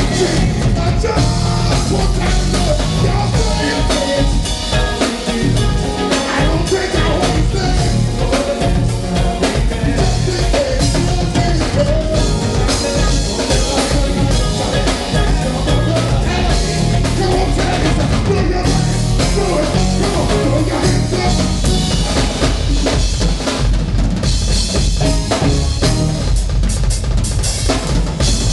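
Live band playing with a full drum kit prominent: kick drum, snare and rimshots driving a steady beat under the other instruments.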